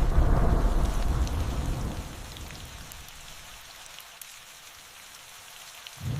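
Steady rain falling, with a deep rumble of thunder that dies away over the first two seconds; a new peal of thunder starts right at the end.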